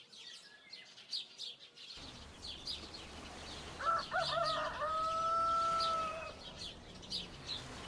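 A rooster crows once, about halfway through, ending in a long held note, over the repeated chirping of small birds.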